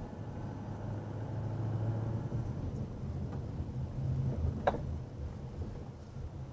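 Low engine and road drone of a car heard from inside the cabin. It swells about two seconds in and again a little later, and there is one sharp click about two-thirds of the way through.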